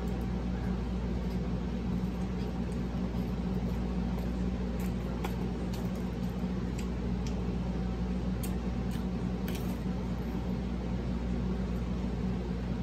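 Steady low background hum, with scattered faint clicks and smacks of someone eating fried fish by hand.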